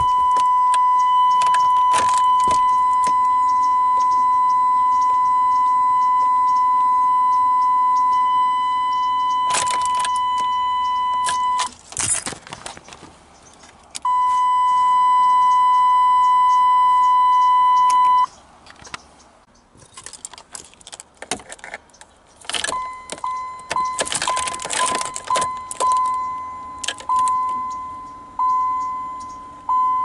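A 1998 Chevy Tahoe's stock warning chime sounding as a steady, unbroken beep, which stops and comes back for about four seconds. Later a swapped-in 1995 Camaro chime module rings instead, first in quick chimes, then in separate bongs about every second and a quarter, each fading away, with keys jangling and clicks among them.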